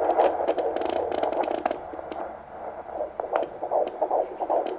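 Fetal Doppler speaker playing an unborn baby's heartbeat as a fast, pulsing whoosh, with scattered clicks.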